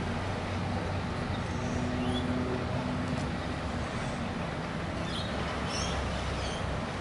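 Steady low rumble of distant city traffic, with a few faint, high chirps of rainbow lorikeets from about five seconds in.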